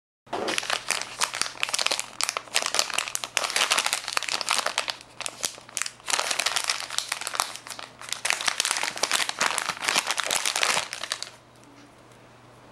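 Plastic zip-lock pouch crinkling and rustling as it is handled and opened and a coiled micro USB cable is taken out. The crinkling stops about a second before the end, leaving only faint room tone.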